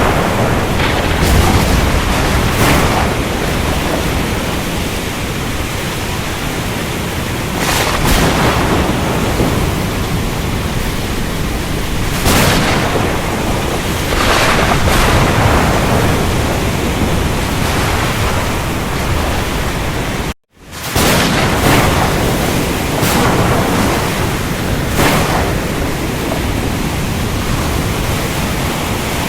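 Storm ambience over the sea: a steady roar of rain and surf with a swelling surge every few seconds, and a sudden brief cut to silence about two-thirds of the way through.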